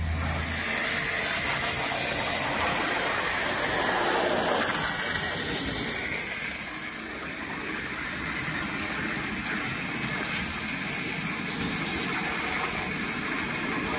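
CNC waterjet cutting machine's high-pressure jet cutting a metal plate: a steady loud rushing hiss of water that begins abruptly and eases off slightly after about five seconds.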